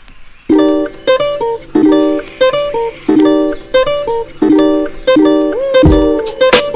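Music: a plucked string instrument repeats a short chord phrase about every second and a third, with percussion hits coming in near the end.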